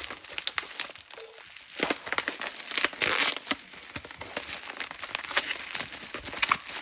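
Plastic packing wrap crinkling and crackling in irregular bursts as it is pulled and torn off a packed radio, louder for a stretch about two to three seconds in.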